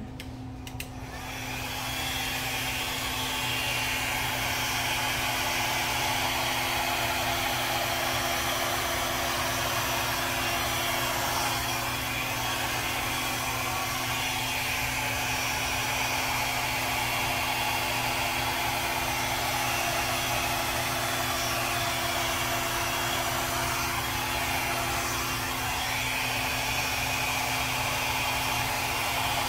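Handheld hair dryer switched on about a second in, then running steadily.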